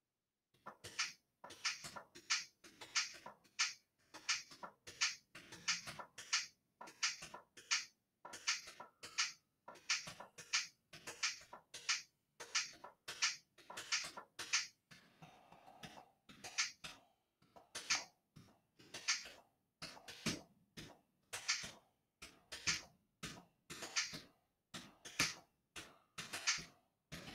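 Drum samples from the Sampulator web beat-maker tapped out live on the computer keyboard: an uneven beat of short drum hits, about two or three a second.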